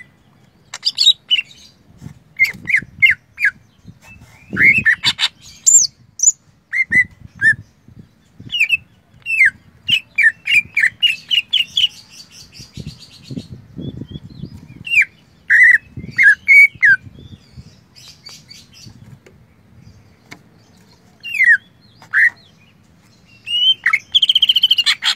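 Caged cucak ijo (green leafbird) singing a loud, varied song of short, sharp downslurred whistles in quick runs, with a fast trill about halfway through and a harsh buzzy phrase near the end. It is an 'isian' song, filled out with phrases learned from other birds such as the canary.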